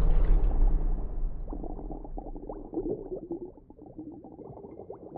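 Electronic soundscape. A loud low drone fades and grows muffled over the first two seconds, giving way to a quieter bubbling scatter of short, slightly rising blips.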